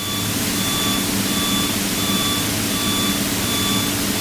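Light aircraft's piston engine running steadily, with a short electronic beep repeating about twice a second over it.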